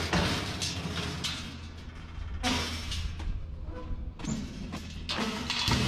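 A vehicle engine idling with a steady low hum, under several loud bursts of rattling and rustling noise: once at the start, about halfway through, and again near the end.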